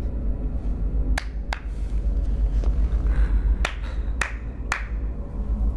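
A steady low rumble under five sharp snaps: two close together about a second in, then three about half a second apart a little later.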